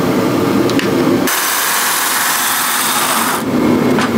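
Makita cordless chainsaw running, its chain spinning on the bar during a test run. About a second in, the sound turns to a higher, hissier whir for roughly two seconds, then settles back.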